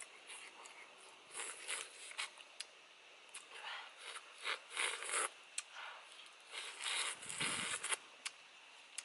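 Close-up eating sounds: a person chewing and sucking on pieces of cooked fruit and picking at them with his fingers. The sounds come as irregular short bursts and sharp clicks, a few a second at times.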